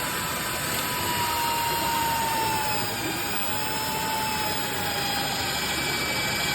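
Low-speed electric drill motor running under load as it drives a Tek 5 self-drilling screw through steel, a steady whine that slowly sinks in pitch.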